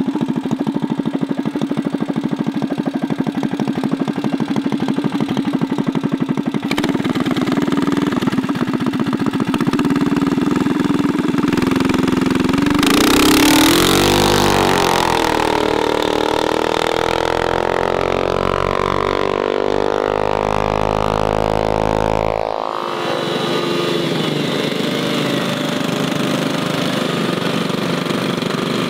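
Mini bike engine running steadily at high revs, then revving up and down through the middle before dropping back abruptly to a steady run.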